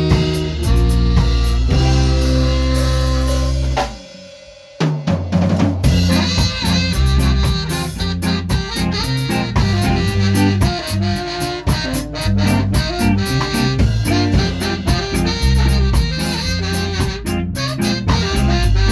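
Ska band playing live, with drum kit to the fore. About four seconds in the band breaks off for under a second, then the drums come back in and the full band plays on.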